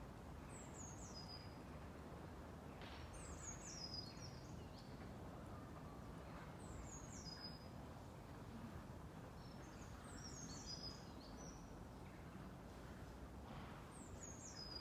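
A small songbird sings a short, high, falling phrase ending on a brief held note, about five times, one every three seconds or so, over a faint steady background.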